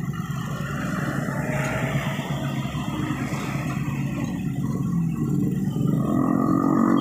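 Diesel engines of a Hitachi excavator and a concrete mixer truck running steadily, growing louder toward the end as the excavator swings its boom.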